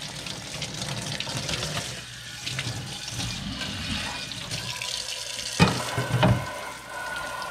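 Kitchen tap running steadily into a sink, with two sharp knocks about five and a half and six seconds in.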